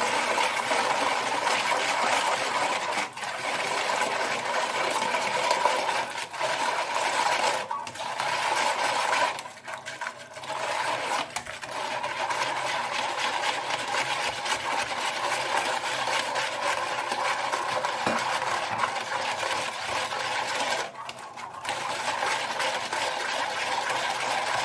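Wire hand whisk beating instant yeast and sugar into lukewarm water in a plastic tub, a fast steady rattle of the wires against the tub, with water poured in from a small steel saucepan; the yeast and sugar are being dissolved so the yeast can ferment. The whisking breaks off briefly a few times, longest about ten seconds in.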